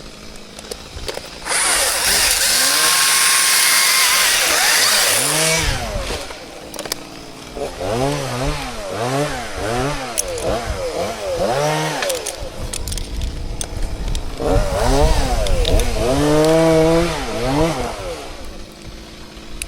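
Two-stroke chainsaw working: a loud, steady stretch at full throttle for about four seconds near the start, then the engine revved up and let back down again and again in quick blips.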